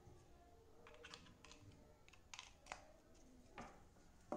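Faint, irregular clicks and light taps from a plastic USB charging cable being handled on a tabletop, its plug and cord knocking the surface, about seven in all, the sharpest near the end.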